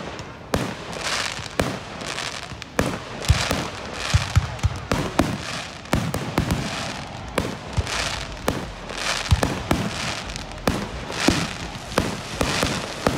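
Aerial fireworks display: shells bursting in a rapid string of sharp bangs, several a second at times, with crackling between them.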